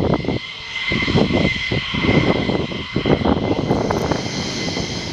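Aircraft engine running, a steady high whine over irregular low rumbling gusts.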